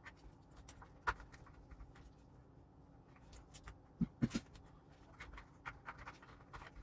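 Scattered light clicks and taps of tools and plastic parts being handled while an RC truck is reassembled after a pinion gear swap, with a sharp click about a second in and three quick knocks around four seconds in.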